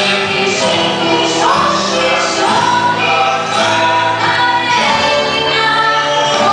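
A choir singing a song to instrumental accompaniment, loud and continuous.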